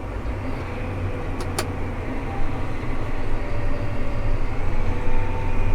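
Tractor engine running steadily, heard from inside the cab as a low rumble that grows a little louder, with two sharp clicks about a second and a half in.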